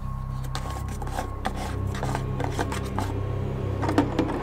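Hands handling hard plastic: a jerry can's screw cap comes off and a small submersible pump on a PVC hose is fed into the can's neck, giving scraping, rubbing and light knocks. A steady low hum runs underneath.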